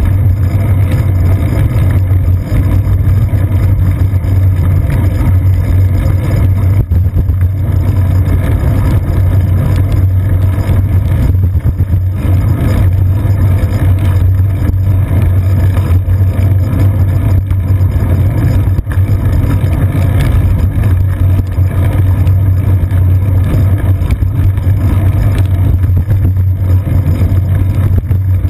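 Loud, steady low rumble of wind and road vibration picked up by a GoPro Hero 2 mounted on a bicycle's seat post, riding on a wet paved path, with a few faint knocks.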